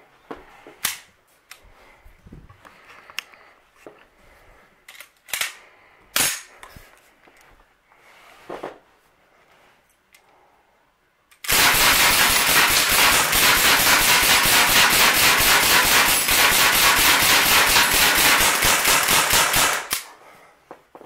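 A few sharp handling clicks, then a SIG Sauer MCX CO2 pellet air rifle fired in a rapid, even string of shots lasting about eight seconds, starting about eleven and a half seconds in. The belt magazine feeds the whole string without a jam.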